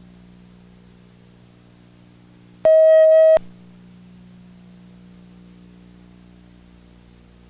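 Steady electrical hum on the soundtrack of an old film-to-video transfer, cut by a loud, steady, single-pitched beep lasting under a second a little before the middle. The beep comes with a tape-tracking glitch in the picture.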